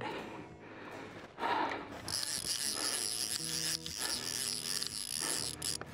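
Fly reel's drag buzzing as a hooked fish pulls line off against it, a steady high rasp that starts about two seconds in and cuts off near the end.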